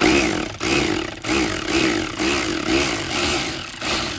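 A power tool spinning a socket on a swivel extension to back out a heater core cover bolt, its motor pitch swelling and dropping in a repeated pulse about twice a second, then stopping suddenly near the end.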